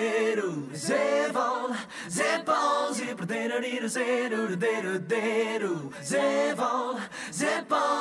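Background music: voices singing a cappella, wavering in pitch, with no instruments.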